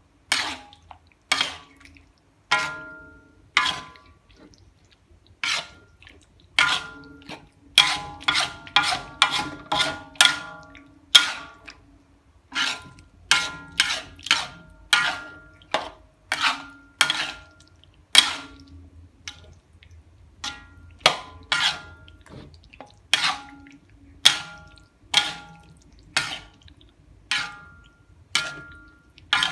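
A metal utensil repeatedly clinking against cookware, each strike ringing briefly at the same few pitches. The strikes come at an irregular pace, about one a second, with a quick flurry about a third of the way through.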